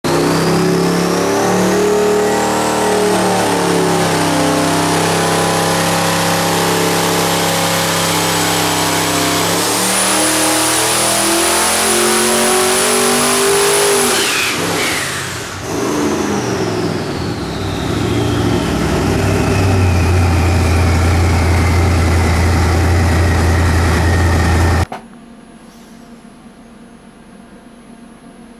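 454 cubic inch twin-turbo Ford Windsor V8 running hard through a dyno pull at about 24 pounds of boost, with the turbo whine rising steadily for about fourteen seconds. Then the throttle lifts, and the turbos' whine falls away over a steady low drone. The sound cuts off sharply near the end, leaving a faint hum.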